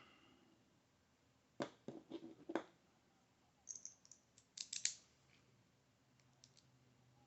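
Light metallic clicks and scrapes from an IKON SK6 lock cylinder being taken apart by hand, in two short clusters about a second and a half in and again around four to five seconds in.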